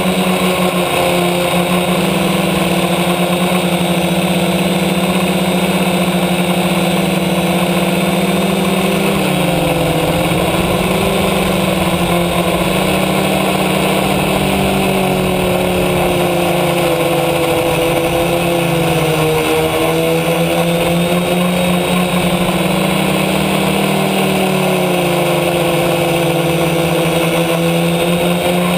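F450 quadcopter's four brushless electric motors and propellers buzzing steadily, heard close up from the camera mounted on the craft. Their pitch wavers and shifts several times, most clearly about nine seconds in, as motor speeds change in flight.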